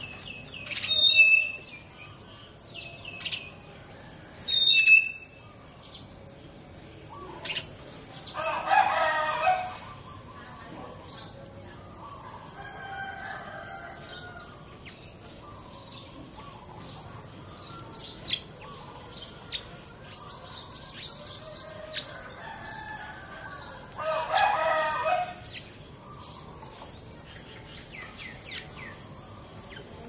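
Sparrows chirping at a feeder, with a rooster crowing twice, about 9 seconds in and again near the end. Two loud, short high calls ring out in the first five seconds, all over a steady high hiss.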